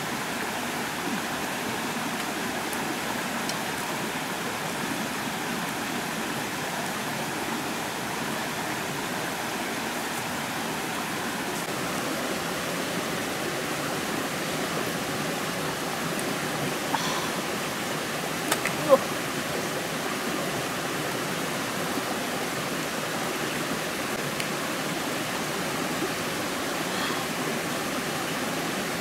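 Steady rushing of a stream, with a few light clicks of chopsticks against the dishes a little past the middle.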